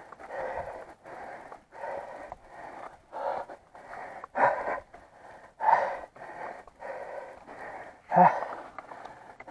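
Heavy, rhythmic panting of a man straining to push a mountain bike up a steep slope, about two breaths a second, with a few louder gasps about four and a half, six and eight seconds in.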